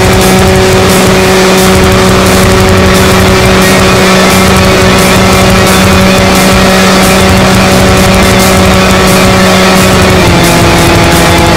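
Electric propulsion of a small RC flying wing in flight: a 1100 kV outrunner brushless motor turning a 7x4 propeller, giving a steady whine with wind rush over the onboard camera. The pitch drops slightly about ten seconds in as the throttle eases.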